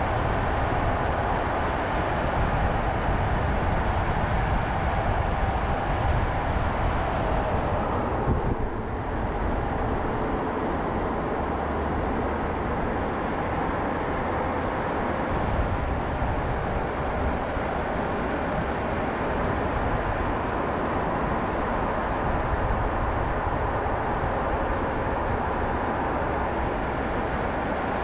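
Steady road noise from a car driving on asphalt, heard through a GoPro mounted low on the outside of the car: tyre rumble and wind noise on the microphone. The sound dips briefly about eight seconds in, then runs on evenly.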